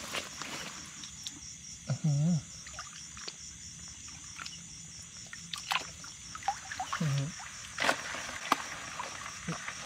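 A hand splashing and groping in a shallow muddy puddle to catch a rice-field crab, with scattered small splashes and clicks. Under it runs a steady, high, pulsing trill of insects.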